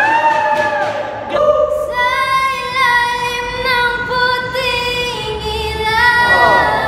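A high voice singing long held notes that step up and down between pitches, an attempt at the song's high belted part. It starts about a second and a half in, after a short gliding vocal phrase, and ends shortly before the close.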